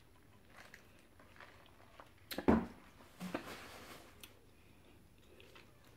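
Quiet handling sounds at a table: a single knock about two and a half seconds in as a paper soda cup is set down, followed by a short rustling hiss.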